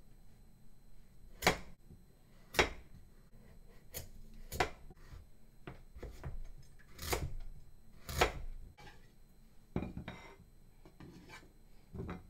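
Chef's knife cutting raw pumpkin on a plastic cutting board: irregular sharp knocks as the blade comes down through the pumpkin onto the board, about half a dozen loud ones, with fainter knocks and scraping between.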